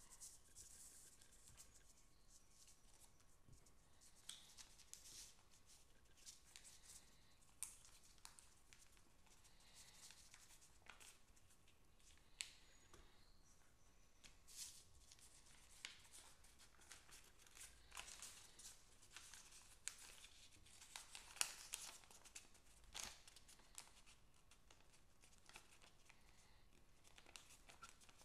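Faint rustling and crinkling of a sheet of lined notebook paper being folded by hand, with scattered short, sharp crackles as creases are pressed and flaps turned over.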